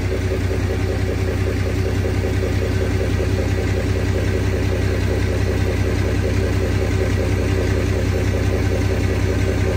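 A vehicle engine running steadily at a constant speed, with an even low hum, while the engine pack is being lifted out of the hull.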